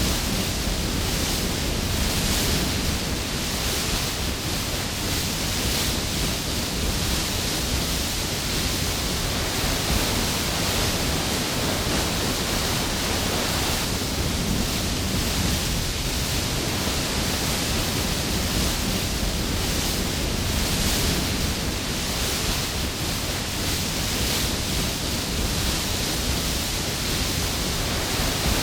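Waterfall with heavy spray, a steady full rush of splashing water with no pause or change.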